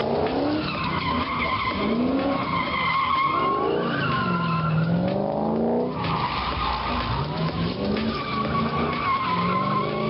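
Drifting car sliding sideways with its tyres squealing steadily, the engine revving up and down several times as the driver holds the slide. The squeal drops away briefly a little past the middle, then picks up again.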